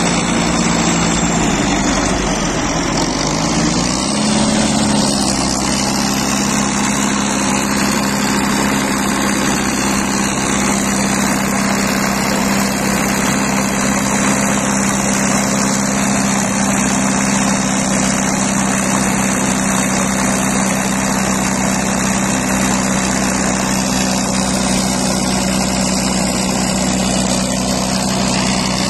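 Caterpillar 518 skidder's diesel engine running steadily close by; about two seconds in its note dips and then climbs back, and after that it holds steady.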